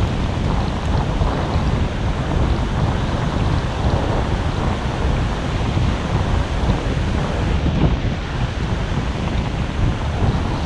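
Strong sea breeze buffeting the microphone in a steady rumble, with surf washing onto the beach underneath.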